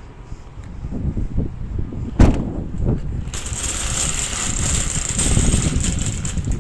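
Metal wire shopping cart pushed across an asphalt parking lot, its wheels and basket rattling steadily from about halfway through, after a single sharp knock about two seconds in.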